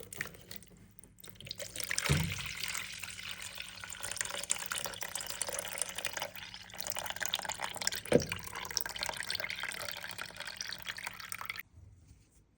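Tap water running as the washing machine's drain pump and filter are rinsed clean, with two brief knocks of the parts against the sink. The water starts about a second in and is shut off sharply near the end.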